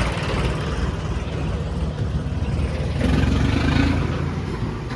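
Tractor diesel engine running under way on the road, a dense low rumble that grows a little louder about three seconds in.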